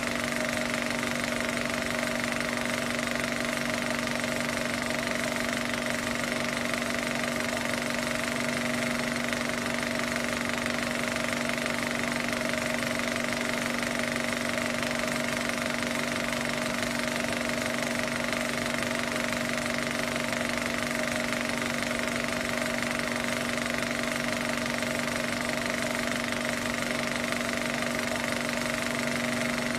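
Film projector running: a steady, rapid mechanical clatter over a constant motor hum.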